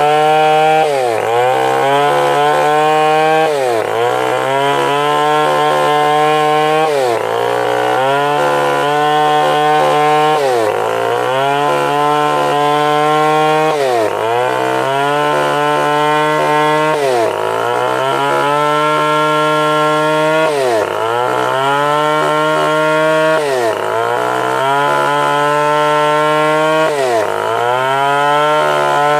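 Stihl 070, a big two-stroke chainsaw, running at high speed and cutting wood. Its pitch sags sharply and climbs back about every three and a half seconds.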